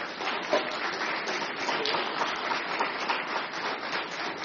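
Audience applauding: many hands clapping in a dense patter that tapers off near the end.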